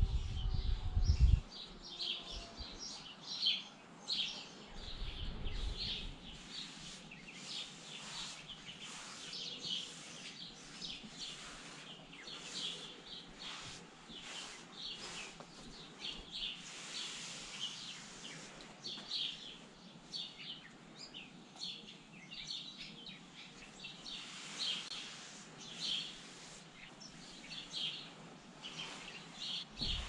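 Small birds chirping again and again, with a few heavy low bumps in the first second and a half and again about five seconds in, and the soft swish of a towel rubbed over a horse's coat.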